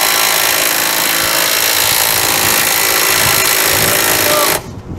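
Power tool running steadily at full speed, then cutting off suddenly about four and a half seconds in.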